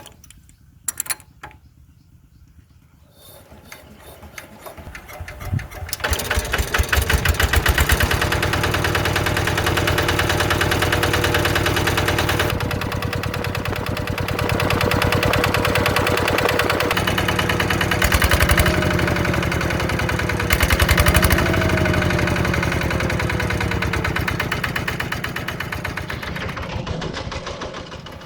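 A small engine comes in and builds up over the first few seconds, then runs steadily with a fast knocking beat. A few sharp clicks come before it.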